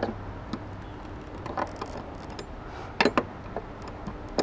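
Open-end wrench clicking and clinking against the metal nut at the bottom of a car's fuel filter as it is fitted on: a few scattered light metal clicks, two close together about three seconds in.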